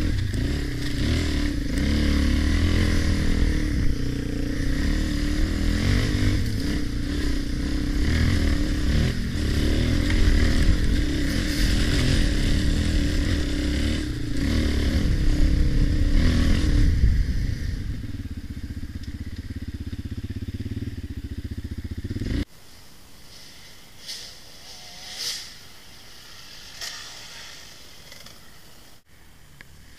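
Dirt bike engine running hard over a rough trail, then easing to a lower, steadier running about two-thirds of the way through and cutting off abruptly. After that, a fainter dirt bike engine revs briefly a few times.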